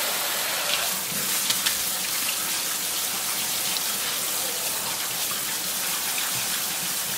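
Kitchen faucet spraying cold water steadily over noodles in a plastic colander, splashing into a stainless steel sink.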